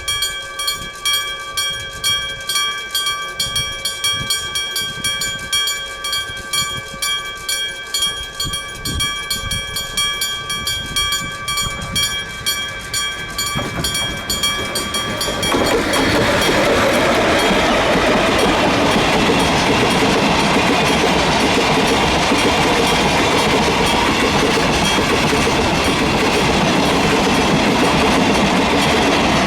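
Electric level-crossing bell ringing rapidly, about three strikes a second, with a bright metallic tone. About halfway through, a freight train reaches the crossing and the loud, steady rumble and clatter of its wagons over the rails takes over.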